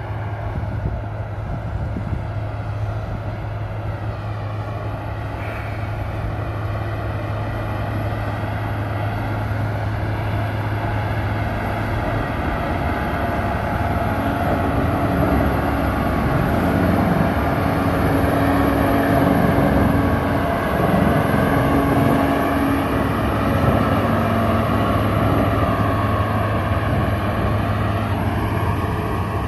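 Cog railway diesel locomotive pushing a passenger coach uphill, its engine running steadily under load and growing louder as it draws near, loudest about two-thirds of the way through.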